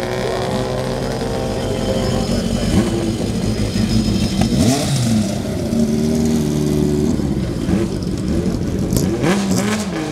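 Race car engines idling steadily, with several short throttle blips that rise and fall in pitch.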